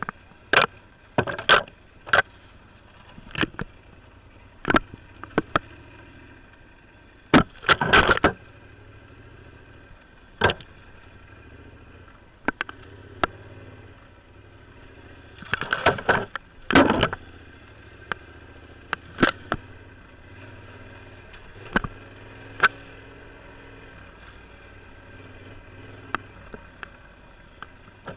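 Yamaha Super Tenere's parallel-twin engine running at low speed on a rough trail, a steady low hum under frequent sharp knocks and rattles that bunch into two loud clusters, about a third of the way through and again past the middle.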